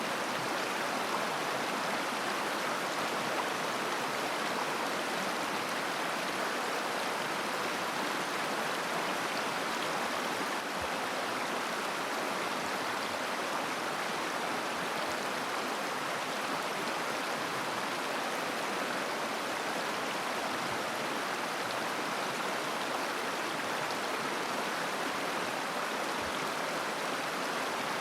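Mountain river flowing: a steady, even rush and babble of water over stones.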